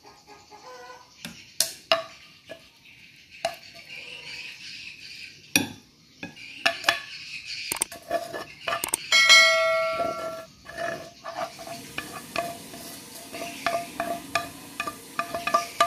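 Chopsticks clicking and scraping against a non-stick pan and a ceramic plate as cooked sweet potato greens are pushed out of the pan. A little past the middle, a bright bell-like chime rings for about a second: a subscribe-button sound effect.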